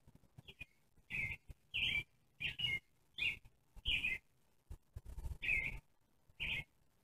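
Kitten mewing: a string of about eight short, high-pitched mews a little under a second apart, with faint clicks in between.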